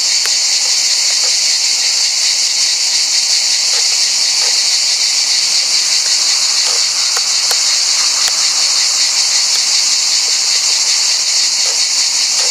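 Steady high-pitched chorus of insects in the trees, an unbroken hiss with a few faint clicks scattered through it.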